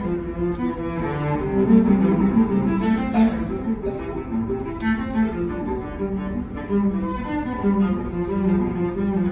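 Solo cello played with the bow, unaccompanied, a continuous passage of notes that change quickly one after another.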